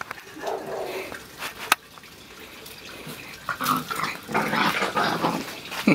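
Puppies at play, growling and yapping in short bursts, mostly in the second half, with one sharp click about two seconds in.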